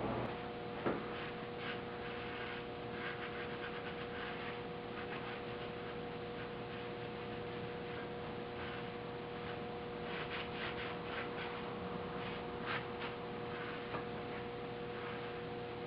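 A steady hum of two held tones, with faint scattered clicks and ticks throughout.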